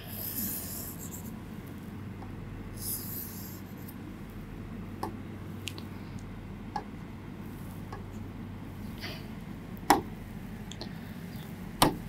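A pen stylus drawing on an interactive display screen: two short scratchy strokes in the first few seconds, then several light taps, the sharpest near the end. A faint steady hum lies under it.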